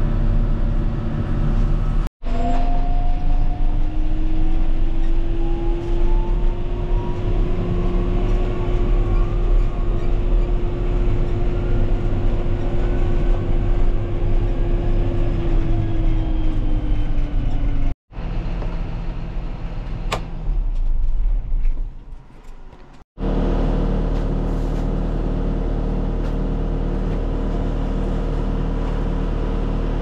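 Farm machinery engine running, with a whine that climbs in pitch for several seconds and then falls away. The sound breaks off abruptly three times, and after the last break the engine runs at a steady, even pitch.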